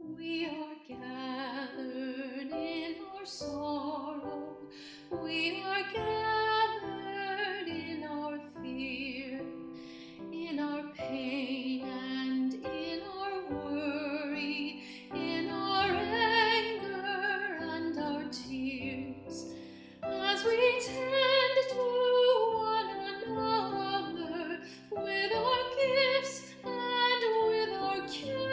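A woman singing a slow song with vibrato, in long held phrases over sustained instrumental chords.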